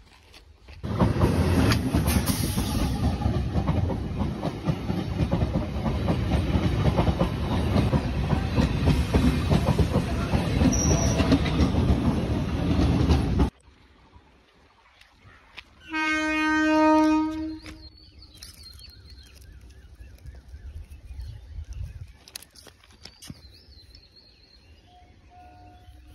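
A train passing close by on the track: a loud, steady rumble of wheels running over the rails for about twelve seconds, which cuts off suddenly. A couple of seconds later a train horn sounds once for about a second and a half.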